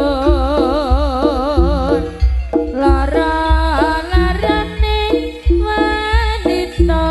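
Javanese jaranan ensemble music: a melody line with wide, wavering vibrato for the first couple of seconds, then moving in stepped held notes, over a steady pattern of deep drum beats and pitched percussion.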